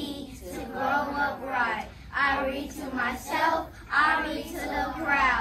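A class of young children reciting a rhyming pledge together in unison, in phrases of about a second with short breaks between them and a sing-song chant.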